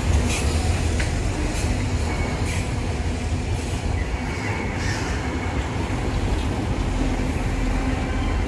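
BNSF freight train's autorack cars rolling past close by: a steady rumble of steel wheels on rail. Scattered sharp clicks come through it, with a faint low hum underneath.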